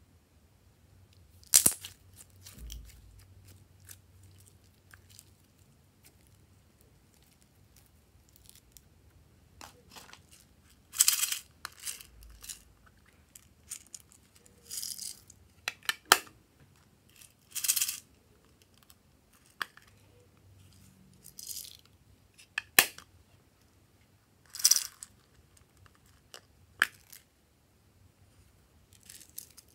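Small plastic cases of sprinkles and clay slices being opened, handled and shaken: a scattering of sharp plastic clicks and short rattling shakes as the bits fall out, a dozen or so events with quiet between them.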